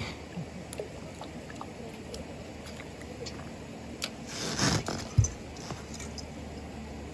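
A hooked rainbow trout splashing at the water's surface while being played on the line, a splash of about half a second some four seconds in, followed at once by one sharp knock.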